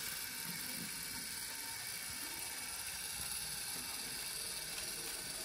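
Rivarossi model Heisler geared locomotive running along the track, its drive gears giving a steady mechanical whirring clatter.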